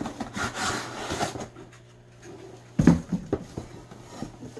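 Rummaging inside a large cardboard shipping box: cardboard and packing rustling, then a few knocks and scrapes about three seconds in as something is handled inside the box.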